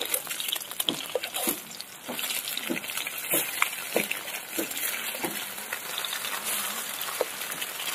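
Halved boiled eggs sizzling in hot oil in a kadai, with a metal spatula scraping and tapping against the pan as the eggs are turned. The scrapes come as repeated short strokes, some squeaky, every half second or so, over a steady sizzle.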